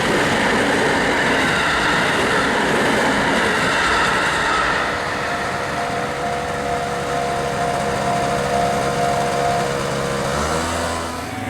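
An electric train running past on the rails at a level crossing. The rush of wheels and running gear is loudest for the first few seconds and then eases, with a steady tone under it.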